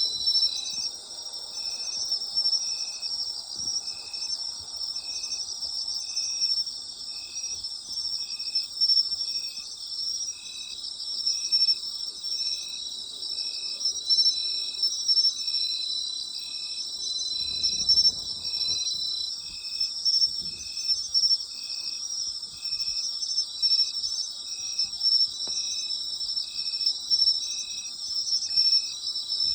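Night-time chorus of autumn insects such as crickets: a dense, steady high-pitched chirring from several insects, with one insect calling in short notes about once a second in a steady rhythm.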